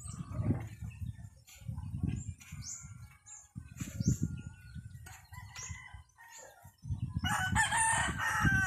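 A rooster crows once, about seven seconds in, over gusts of wind buffeting the microphone.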